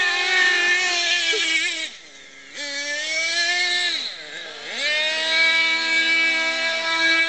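Small engine of a radio-controlled buggy running at high revs with a buzzing whine. The throttle cuts about two seconds in, picks up again half a second later, dips once more near the middle and climbs back to a steady high note.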